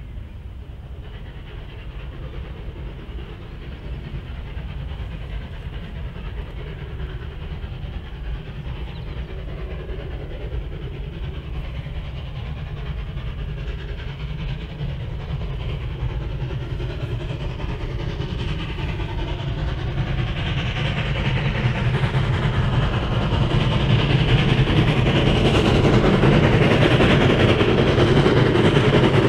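Steam-hauled train approaching, its rumble growing steadily louder until it is close near the end.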